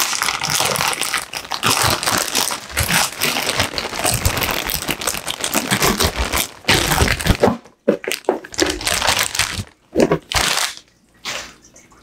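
Thin plastic bag crinkling and rustling as it is handled and pulled open. The crinkling runs almost without pause for the first six seconds or so, then comes in shorter bursts with brief pauses.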